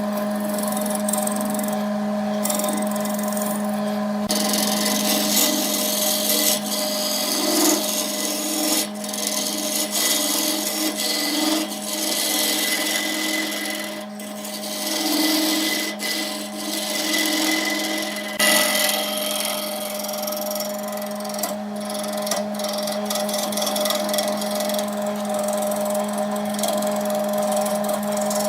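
Wood lathe running with a steady motor hum while a tool works the spinning wood-and-epoxy blank, a scraping hiss that swells and fades as the tool is pressed on and eased off.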